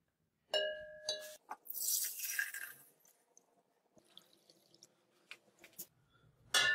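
Glass beaker clinking with a clear ring twice, then liquid being poured into it with a rushing splash for about a second; near the end another ringing glass clink.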